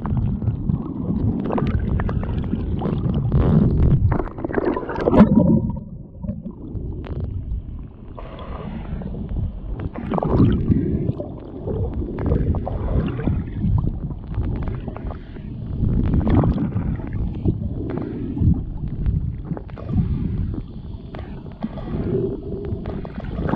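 Muffled low rumbling and gurgling of moving water heard through a submerged camera, rising and falling in uneven surges.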